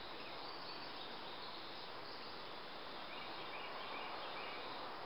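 Steady outdoor background noise with faint insect chirps: short high-pitched calls repeating in little groups.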